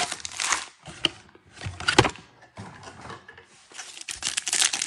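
Foil trading-card pack wrappers rustling and crinkling as the packs are handled, with a few sharp cracks. Near the end there is denser crinkling as a pack is torn open.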